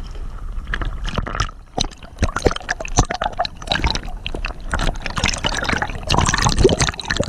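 Water splashing and dripping beside a small boat under way, with irregular close knocks.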